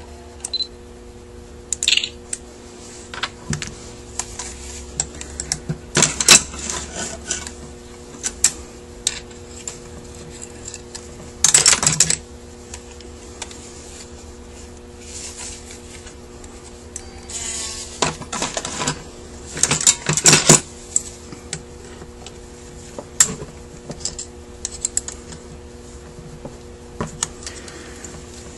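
Metal hand tools and small parts of a Rochester Quadrajet carburetor clicking, scraping and rattling as the float bowl is worked on during teardown. The clicks are irregular, with a few longer rattling scrapes, over a steady low hum.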